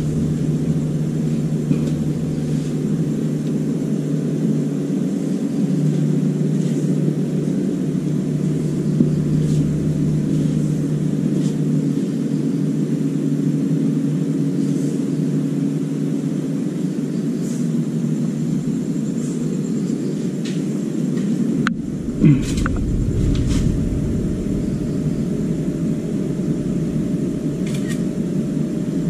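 Steady low machine hum with a held low tone. About 22 seconds in it cuts abruptly to a deeper, noisier rumble, with a few clicks after.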